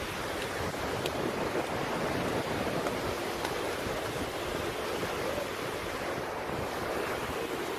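Sea surf washing steadily onto a beach, with wind buffeting the microphone in low, uneven rumbles.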